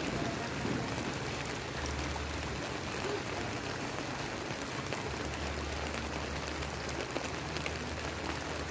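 Steady rain falling on a wet street, an even hiss dotted with many small drop ticks.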